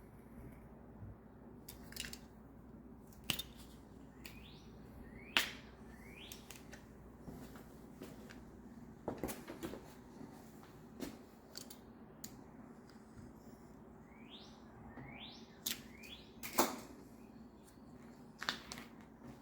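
Scattered clicks and knocks of hand tools on bicycle parts, the loudest about five and seventeen seconds in, with short rising bird chirps now and then in the background.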